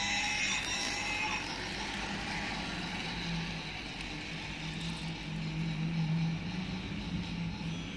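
Toy train running past on its track: its small motor and wheels give a steady low hum that builds a few seconds in and eases near the end, after a few high tones and clicks in the first second or so.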